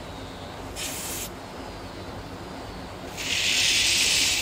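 Pressurized gas let out in two hissing bursts at the diesel locomotive's wheel gear: a short burst about a second in, then a longer, louder one near the end.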